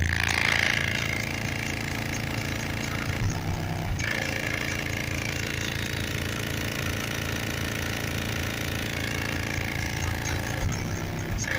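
A Dodge Dakota pickup's engine idling steadily once the bass music has cut off.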